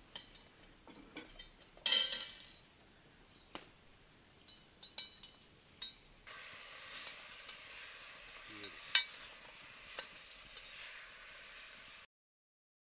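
Food sizzling in a pan over a wood fire: a steady hiss with scattered pops and clicks, setting in about halfway through and cutting off suddenly near the end. Before it come sparse clicks and a short, loud rustling burst about two seconds in.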